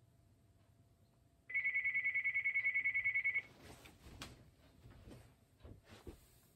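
Cordless desk phone ringing: one electronic trilling ring, about two seconds long, near the start. Faint rustles and small knocks follow as a hand reaches toward it.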